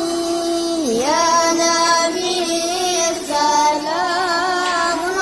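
A high voice sings a slow, ornamented melody of long held notes that waver and turn, over music. It is a devotional Islamic chant, a sholawat.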